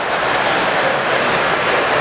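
Steady hubbub of a crowd: many indistinct voices blending into an even, unbroken wash of sound.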